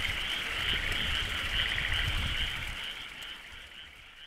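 Frogs calling in chorus, a steady rapid trilling over a low rumble, fading out over the last second or so.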